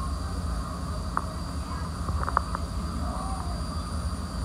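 Steady low rumble of a ferry boat's engine underway on open water, with a few short sharp ticks about a second in and again around two seconds in.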